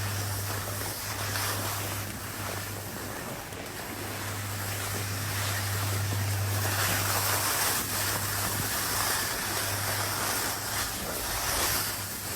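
Wind rushing over the microphone: a steady noisy rush with a low rumble underneath.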